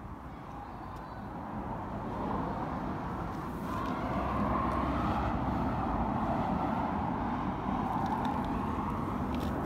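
A steady rushing vehicle noise that builds over the first few seconds and then holds.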